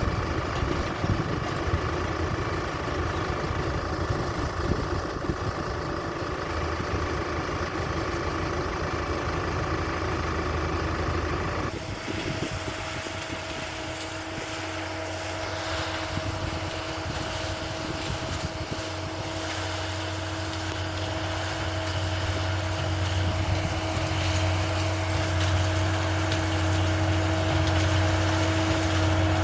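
Fendt 712 tractor and Supertino big square baler running steadily, a continuous engine drone with steady machine tones. About twelve seconds in the sound changes abruptly to a lower, smoother hum with a clear steady tone over it.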